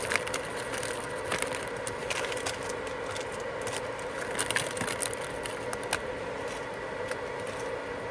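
Cooking preparation: a scattered run of light clicks, taps and scrapes of utensils and packaging over a steady hiss.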